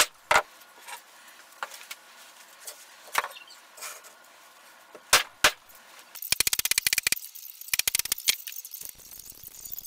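A few separate sharp knocks, then two quick runs of rapid clicking, about six and eight seconds in.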